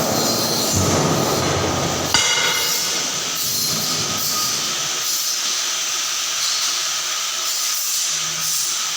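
Green tea processing machinery running: a steady mechanical rumble and hiss, with a sharp clank about two seconds in.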